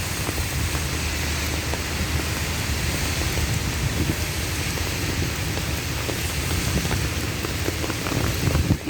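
Heavy rain pouring down steadily, with a low rumble underneath.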